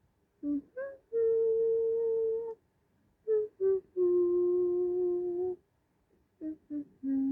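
A person humming a short waiting tune: three phrases, each two quick notes followed by a long held note, each phrase pitched lower than the one before.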